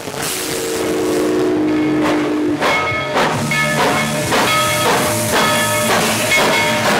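Steam locomotive whistle sounding a low chord for about two seconds over a steady hiss of steam, followed by rapid repeated ringing tones and chuffing strokes.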